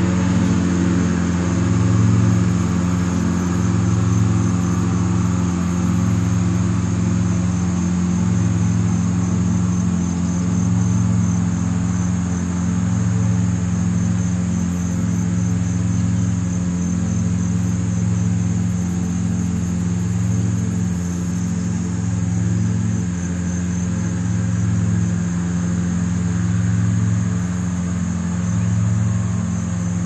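A steady low mechanical hum with a slow, regular swell, and crickets trilling in a continuous high band above it.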